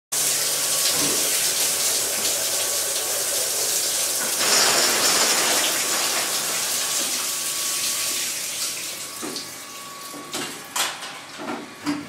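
Water spraying hard from an automatic body-washing machine's shower column in a tiled shower room, a steady loud hiss and splash while its rotating brush moves down the column. The spray fades out over the last few seconds, and a few sharp knocks follow near the end.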